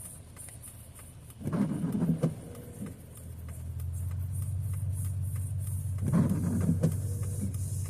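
Car driving on a wet road, heard as a steady low engine and road hum that swells about three seconds in, with faint scattered ticks and two short louder bursts about four and a half seconds apart.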